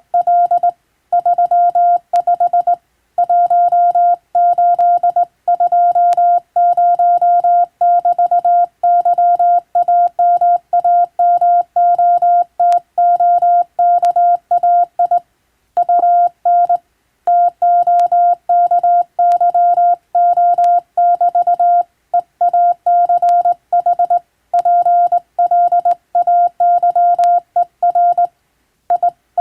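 Hand-sent Morse code: a steady single-pitch beep keyed on and off into dots and dashes, with short gaps between words, spelling out English-text telegram practice. Faint clicks sound here and there.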